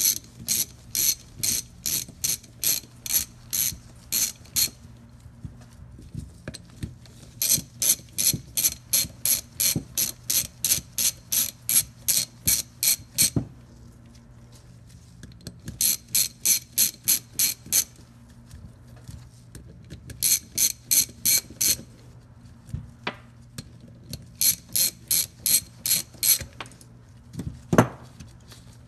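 Socket ratchet clicking in runs of about three clicks a second as it backs out the 8mm bolts holding the cap on a starter solenoid, with pauses between runs. A single sharp knock comes near the end.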